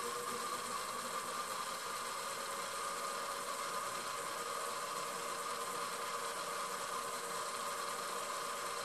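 Lapidary flat-lap grinding machine running steadily with its water feed on: a steady motor hum under an even hiss.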